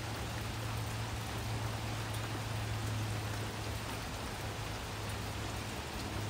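Steady rain falling, an even hiss, with a low constant hum underneath.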